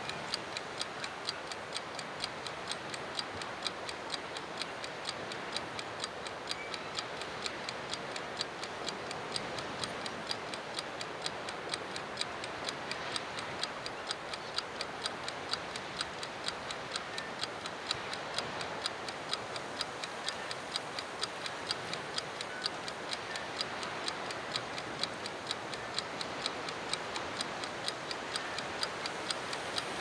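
Clockwork mechanism of a time-lapse panning timer ticking steadily and rapidly as it slowly turns the camera, over a steady background hiss.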